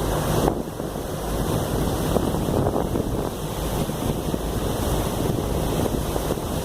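Wind buffeting the microphone over the steady low rumble of a harbour ferry under way, with the wash of water against the hull.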